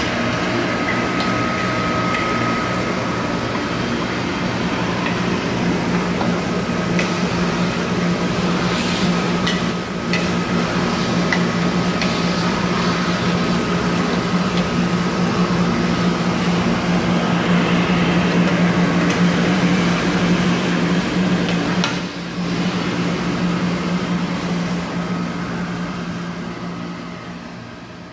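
Ruwac FRV110 explosion-proof industrial vacuum running steadily with a low hum and a high whine, air rushing through the hose, with a few short clicks as the nozzle works. The sound fades away near the end.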